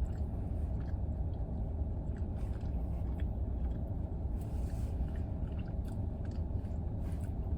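A person chewing a roast beef sub sandwich with the mouth close to the microphone, with faint soft clicks of chewing, over a steady low rumble inside a car.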